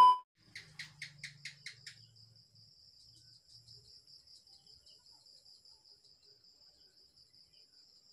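The end of a loud, steady test-tone beep from a colour-bar transition, cutting off just after the start. Then, faint, a quick run of about six chirps and a steady high-pitched pulsing trill from a night insect.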